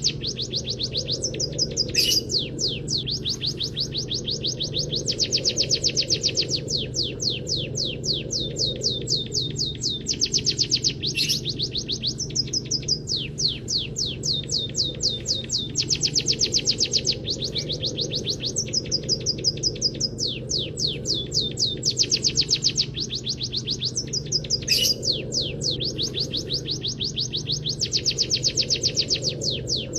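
A munia singing a copied canary song: long rolls of rapid, sweeping high notes, several to the second, phrase after phrase with short breaks. A few sharp clicks cut in, over a steady low hum.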